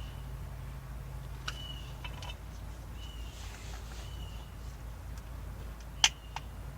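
A bird calling outside with short, level, high whistles, repeated every second or so over a steady low hum. Several sharp clicks are heard; the loudest comes about six seconds in.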